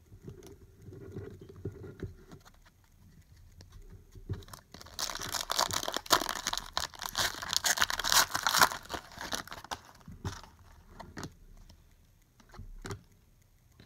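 Plastic trading-card pack wrapper being torn open and crinkled, loudest in a dense stretch of crinkling near the middle, with soft rustling and light clicks of cards being handled around it.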